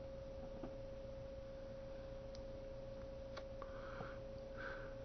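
Faint steady single-pitched tone on a telephone line while the call is on hold, with a few faint clicks and brief muffled noises in the background.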